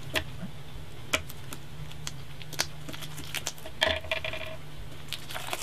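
A stack of trading cards handled on a wooden tabletop: scattered light taps and clicks as the stack is squared and set down, over a low steady hum. A short high tone sounds briefly about four seconds in.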